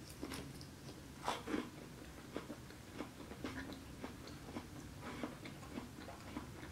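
A person chewing a mouthful of salad with lettuce, close to the microphone: many small, faint crunching clicks, with a louder pair of crunches about a second and a half in.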